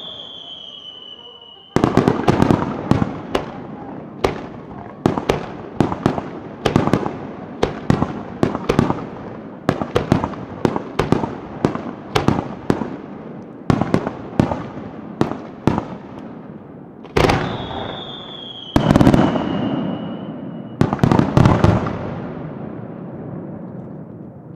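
Aerial fireworks shells bursting in quick succession, sharp bangs about one or two a second, each with an echoing tail. The bangs are twice preceded by a long whistle that slides down in pitch, once at the start and once about two-thirds of the way through. A last heavy cluster of bangs fades out near the end.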